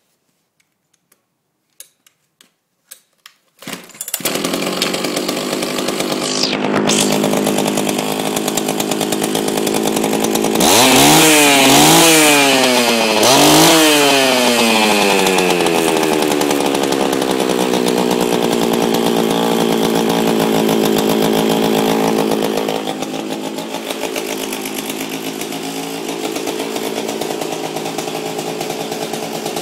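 Chinese-made two-stroke chainsaw engine, run with its chain removed: a few clicks, then it starts about four seconds in and runs steadily. It is revved twice around the middle, the pitch rising and falling back each time, then settles to idle and is a little quieter near the end.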